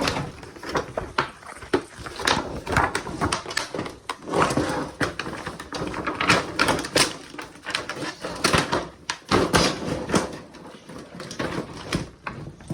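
Thin plastic film sheets from an LCD TV's backlight stack being pulled out and handled, crinkling and crackling loudly in irregular bursts with sharp clicks.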